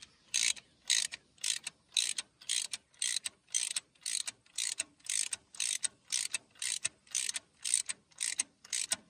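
Hand socket ratchet clicking in short even bursts, about two and a half a second, as its handle is swung back and forth to run a sealer-coated exhaust manifold stud into the cylinder head.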